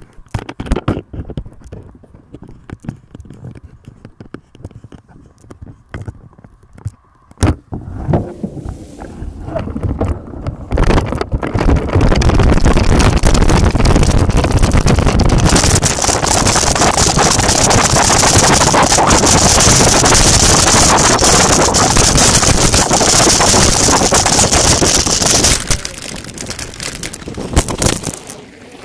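Mountain bike riding fast down a rough dirt track: loud wind buffeting the camera microphone over the rattle of tyres and bike on the ground. It starts with a few light clicks and knocks, builds from about eight seconds in, stays loud for roughly a quarter of a minute and dies down near the end.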